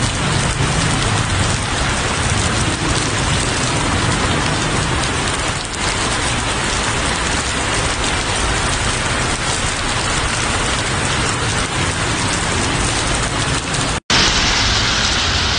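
Heavy rain pouring onto the road and pavement: a loud, dense, steady hiss. It breaks off for an instant about fourteen seconds in and comes back brighter and hissier.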